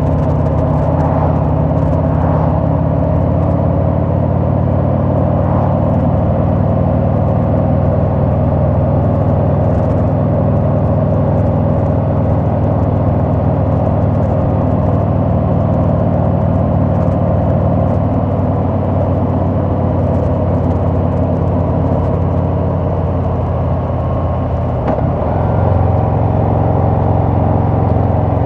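Harley-Davidson Sport Glide's V-twin engine running steadily while riding, its exhaust note mixed with road and wind noise. A little after three-quarters of the way through it eases off briefly, then pulls louder again.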